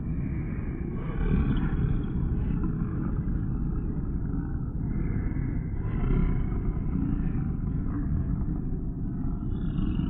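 Sound-effect creatures growling over a deep, steady rumble. The growls swell and fade in waves every few seconds.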